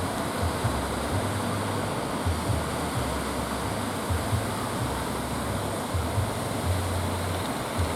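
Steady roar of surf and rushing water, with strong wind buffeting the microphone in irregular low rumbles.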